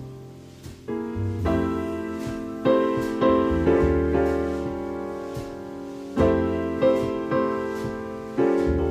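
Background music: piano playing chords, each struck and left to ring and fade.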